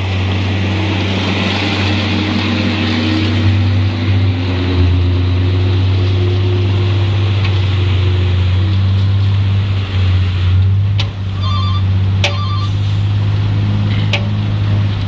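Truck engine running with a steady low drone. A few sharp clicks and two short bursts of rapid beeping come near the end.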